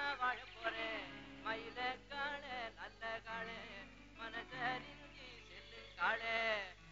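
Background music: a singing voice in wavering, ornamented phrases over sustained instrumental notes.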